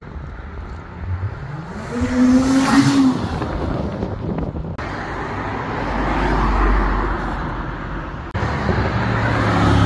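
Performance cars accelerating hard past one after another. The first car's engine revs climb to a loud pass-by two to three seconds in. After abrupt cuts, a deep low rumble comes from a second car, then another engine near the end.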